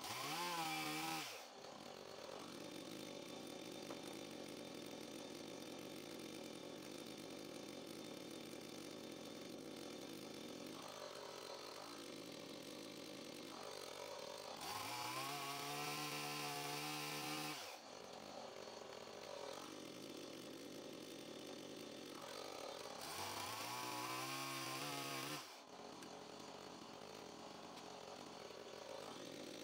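Stihl gasoline chainsaw idling, revved up three times to cut through dry branches, each time for two to three seconds before dropping back to idle.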